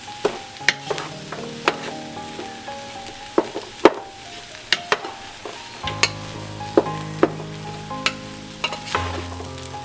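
Wooden spoon stirring and scraping fried rice in a stainless steel stockpot, with sharp irregular knocks of the spoon against the metal, the loudest about four seconds in, over a light frying hiss.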